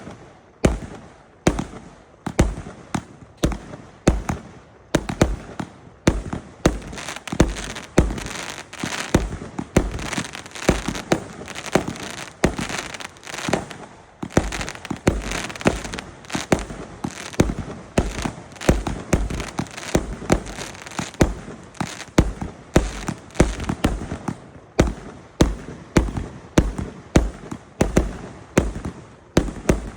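A 168-shot firework cake firing shot after shot: sharp bangs at about two a second, with crackling between the bangs in the middle stretch.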